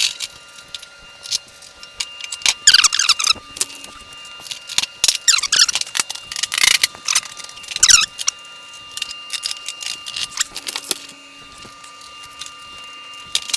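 Steel snowplow blade parts clinking, rattling and scraping as they are worked into line by hand, with four or so sharp metal squeals in the first eight seconds, then lighter clicks and taps.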